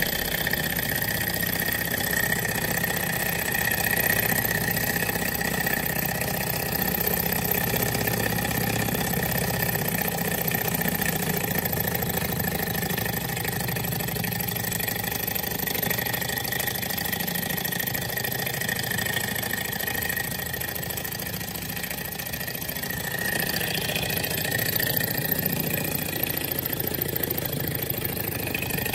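Small model hot-air Stirling engine, heated by a spirit-lamp flame, running steadily: an even mechanical clatter from its piston and flywheel crank with a steady high tone over it.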